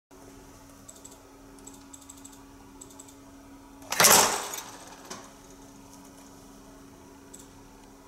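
Terminal crimping press making one crimp stroke: a short loud clunk about halfway through that dies away quickly, with a smaller click a second later. A steady low machine hum and faint ticking run underneath.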